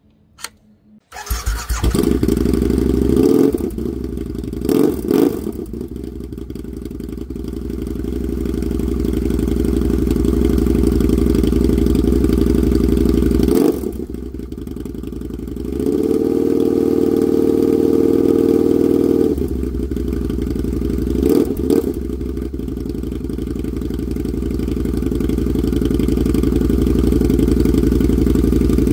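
2002 Harley-Davidson V-Rod's liquid-cooled Revolution V-twin starting up about a second in, then running with a few short blips of the throttle, its note shifting a few times.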